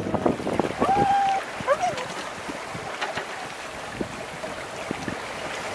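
Steady rush of wind and water on a sailing yacht under sail: wind over the microphone and water moving along the hull. A few short pitched sounds, like a voice, come in the first two seconds.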